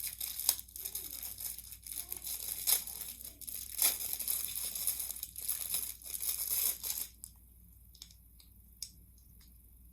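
Packaging for a fidget toy crinkling and tearing as it is pulled open, with many quick crackles. The crinkling stops about seven seconds in, followed by a couple of faint clicks.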